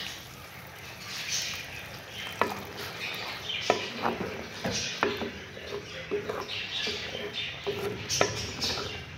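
Wooden spoon stirring black chickpeas and water in a clay cooking pot: a wet swishing, broken by several sharp knocks of the spoon against the pot.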